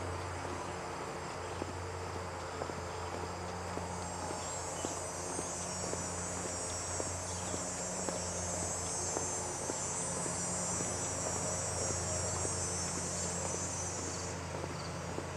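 An insect's high, steady buzz in the trees, swelling in about four seconds in and cutting off suddenly about a second before the end.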